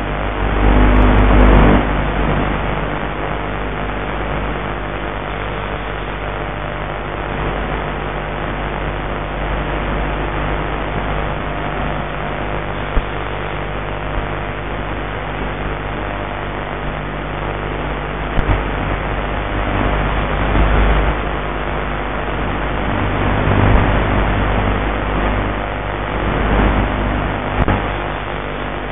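Mini Talon's electric pusher motor and propeller running steadily in flight, a steady hum over rushing air, heard through the low-quality onboard video-link audio. Gusts of low wind rumble come and go in the second half.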